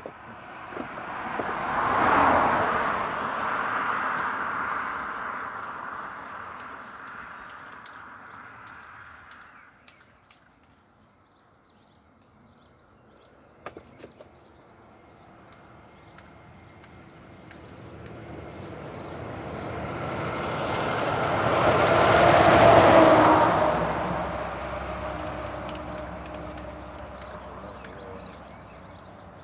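A vehicle passing by, twice: each time the noise swells over several seconds and then fades away, the second pass-by louder than the first.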